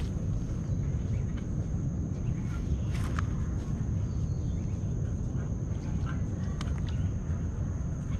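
Outdoor ambience by open water: a steady low rumble of wind on the microphone, a thin steady high whine like an insect, and a few faint chirps and clicks here and there.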